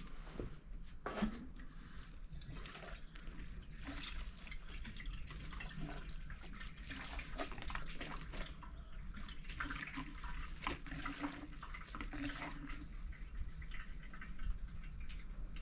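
Irregular trickling and dripping of liquid, with many small scattered clicks and splashes.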